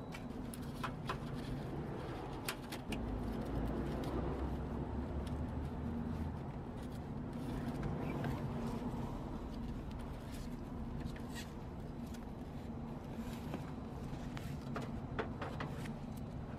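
Rustling and scattered light clicks of hands and clothing working close by as insulation tape is wrapped around a repaired copper water pipe, over a steady low hum.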